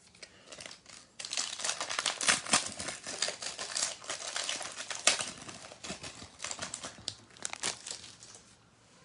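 Plastic wrapper of a trading-card pack being torn open and crinkled by hand, a busy crackling that starts about a second in and dies away near the end.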